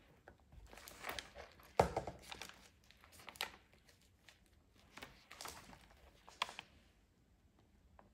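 Stiff paper pages of a handmade journal rustling and crinkling as they are turned, in two bouts, with a sharp tap near the start of the first.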